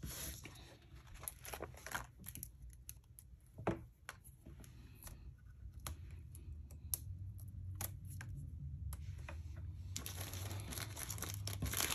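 Quiet crinkling of paper with scattered small clicks as small foam adhesive squares are peeled from their backing sheet and handled, with a denser rustling over the last two seconds.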